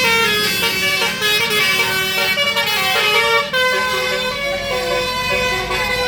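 A bus's basuri telolet horn, a multi-tone musical horn, playing a tune of quickly changing notes.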